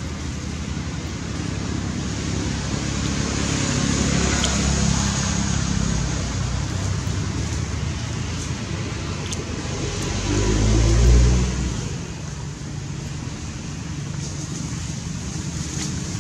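A motor vehicle's engine running steadily with a low hum, growing louder and loudest about eleven seconds in, as if passing close by.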